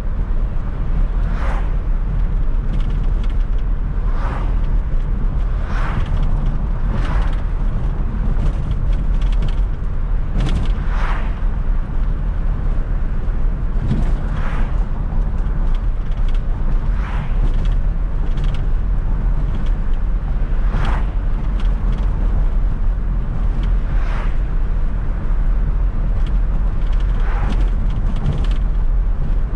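A 1995 Fiat Coupe 2.0 16V Turbo being driven, its engine and road noise making a steady low drone. Short, higher-pitched sounds cut in every few seconds.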